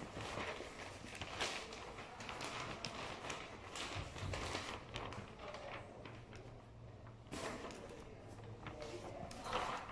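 Wrapping paper rustling and crinkling as a sheet is handled and folded around a large cardboard box, in irregular bursts with a quieter stretch after about six seconds.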